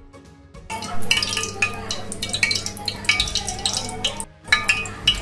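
Brief background music, then busy clinking and scraping of metal kitchenware against a steel bowl, as in stirring. The sound breaks off for a moment about four seconds in and then resumes.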